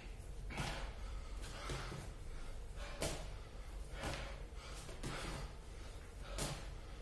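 A man breathing hard and gasping with each rep of burpees, under heavy exertion. His hands and feet thud on the gym floor as he drops down and jumps back up.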